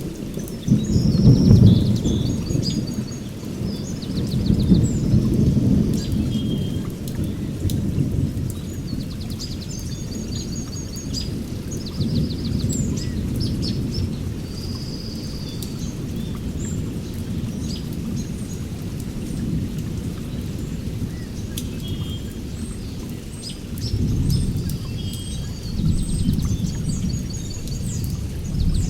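Heavy rain with thunder rumbling in rolling swells, loudest about a second in and again near the end. Birds chirp and trill over the storm throughout.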